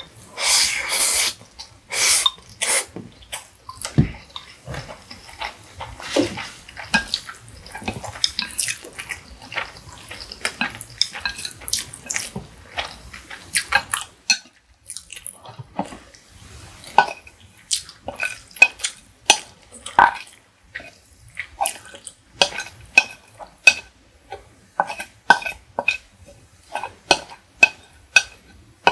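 Close-up eating sounds: a loud slurp from a glass bowl about a second long at the start, then steady chewing and mouth smacks from eating instant noodles, with short clicks of chopsticks and a wooden spoon against the dishes.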